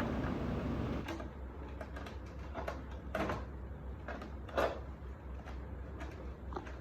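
Plastic cabinet panels and parts knocking and clicking as they are fitted together, a few scattered knocks with the loudest about two-thirds of the way in, over a steady low hum. A louder rushing noise stops about a second in.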